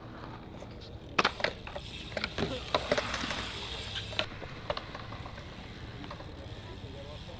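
A bike being ridden at a skatepark: a rattling run of sharp clicks and knocks from about one to four seconds in, over steady wheel rumble.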